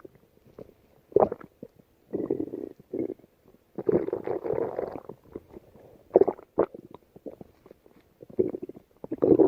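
A woman's stomach growling and gurgling in irregular bursts with quiet gaps between them, the longest burst lasting about a second near the middle.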